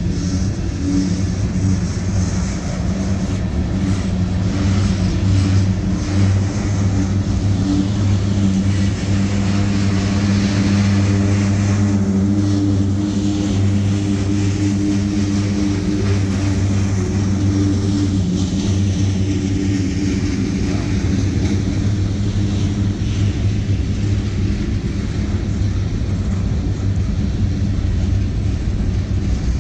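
Freight cars of a manifest train, covered hoppers and tank cars, rolling past at steady speed: a continuous rumble of steel wheels on rail with a steady low hum.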